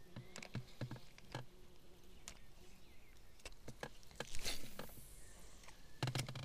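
Irregular small clicks and knocks of spinning tackle being handled in a boat, with a short hiss about four and a half seconds in.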